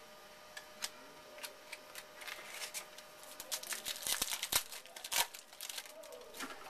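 Football trading cards being handled and sorted by hand: a run of soft flicks, clicks and crinkles, busiest about four to five seconds in.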